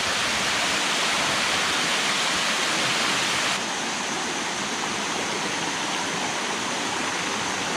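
Water rushing steadily down a waterfall's cascades. A little past halfway, the sound turns slightly quieter and duller.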